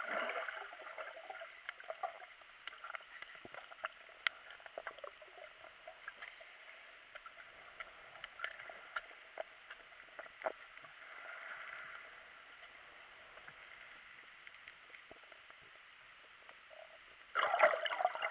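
Water heard through a submerged camera: a faint, steady swish dotted with scattered small clicks and crackles, with a much louder rush of water starting about a second before the end.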